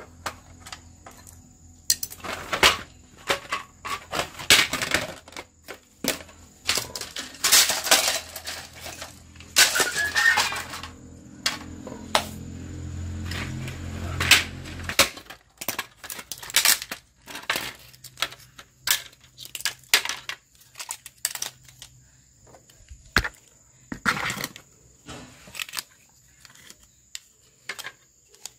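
Irregular clicks, clanks and scraping of a receiver's thin sheet-metal case and its circuit boards being handled by hand, as the cover is lifted off and the boards and wiring are pulled out.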